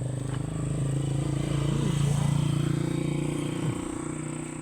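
A motor vehicle engine running steadily, growing louder about two seconds in and then easing off.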